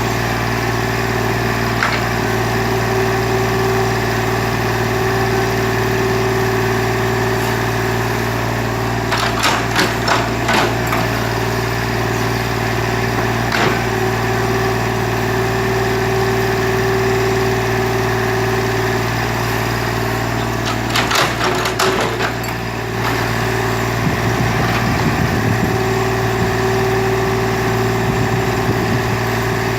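Excavator engine running steadily under work, with a low, even hum. Two clusters of sharp knocks break in, about nine seconds in and again about twenty-one seconds in.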